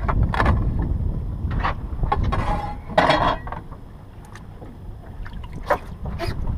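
Wind rumbling on the microphone, with a scattering of short knocks and clatters; the loudest comes about three seconds in.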